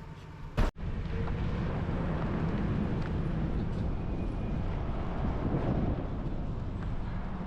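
A vehicle driving, with a steady low rumble of engine and road noise. A sharp click and a momentary dropout come about half a second in, after which the rumble is louder.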